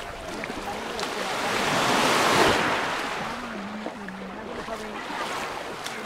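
Small Mediterranean wave washing up the fine shingle shoreline, swelling to a peak about two seconds in and then draining back over the gravel. A faint steady hum joins from about halfway.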